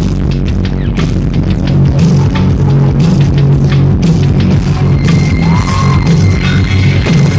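Loud rock music with drums and electric guitar.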